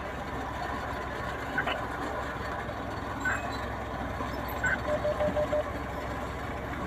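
Steady low rumble of heavy machinery running, with a quick run of five short beeps about five seconds in.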